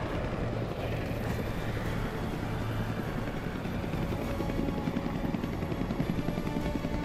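Helicopter rotor chopping steadily overhead, with film score music underneath.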